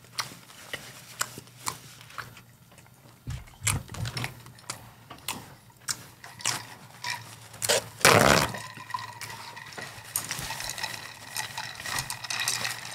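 Ice cubes clinking in a glass mug of Coca-Cola as a straw stirs them, a scatter of small clicks and knocks. One louder, longer noise comes about eight seconds in, and a faint steady hiss runs through the last few seconds.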